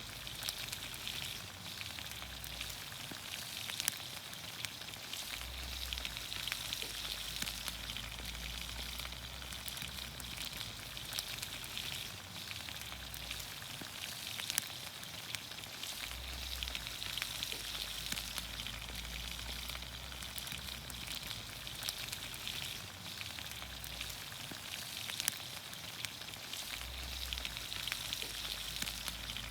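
Vegetables in olive oil sizzling in a pan over a campfire: a steady hiss dotted with frequent small pops and crackles.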